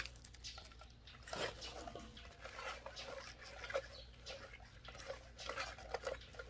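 Thick chilli seasoning paste sliding and dripping out of a plastic food-processor bowl as it is scraped out with a stick: faint, irregular wet plops, scrapes and light plastic taps.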